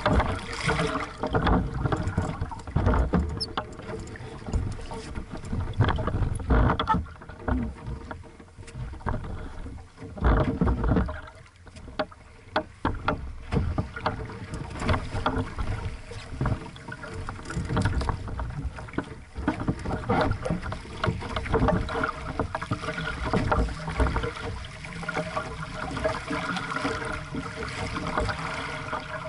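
Water splashing and slapping against the hull of a small aqu@muse sailing dinghy under sail, in irregular surges with occasional knocks. The rush of water becomes steadier in the last third as the boat picks up speed.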